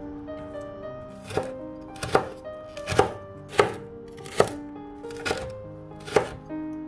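Large kitchen knife chopping frozen tomato slices against a wooden cutting board: about seven sharp strikes at roughly one a second, starting about a second in.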